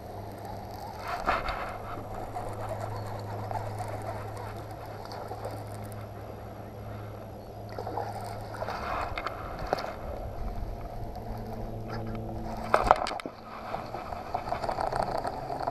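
Electric trolling motor humming steadily at a low pitch and cutting off about 13 seconds in. Over it come a few brief rattles from casting and reeling a baitcasting rod.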